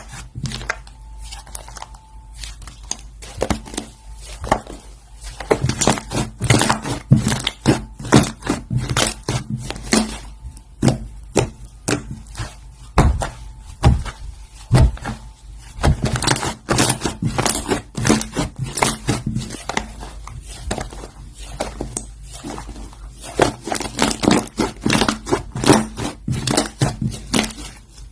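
Slime being squished and pressed by hand, giving a dense run of sticky clicks, crackles and small pops, at times coming in quick clusters.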